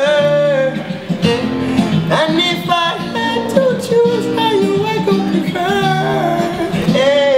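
A male voice singing a melody over acoustic guitar chords, in an unplugged performance.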